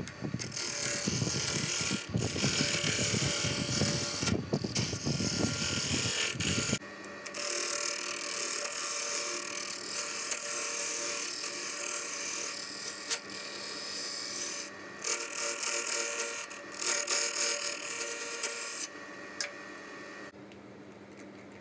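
Wood lathe spinning a glued-up segmented wooden blank while a hand-held turning tool cuts into it: a loud rasping scrape in several stretches over a steady motor hum. The cutting stops near the end, leaving the lathe running on its own.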